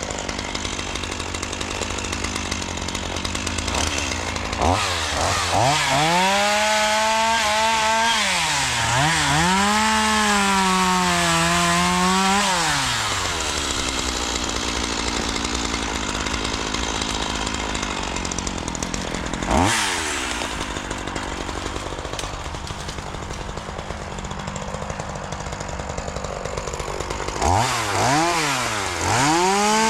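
Two-stroke chainsaw cutting brush and small trees. It runs at a low steady note, is revved up for several seconds from about five seconds in, its pitch sagging and recovering as the chain bites into wood, drops back, and is revved into another cut near the end.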